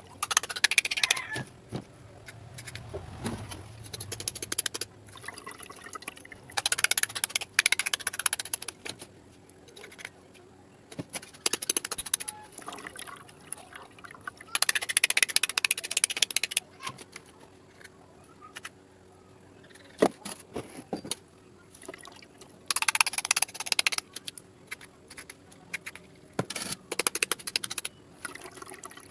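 Water sloshing and splashing in about five short bursts as sea urchin roe is rinsed by hand in a metal mesh strainer over a basin of water.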